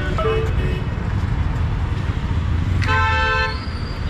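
Busy road traffic: engines running steadily, and a vehicle horn honking once, briefly, about three seconds in.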